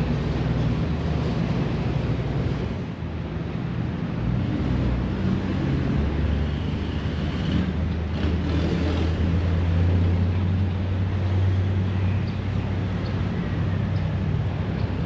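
A vehicle engine's low, steady rumble with road and wind noise, growing louder from about halfway through and easing off near the end.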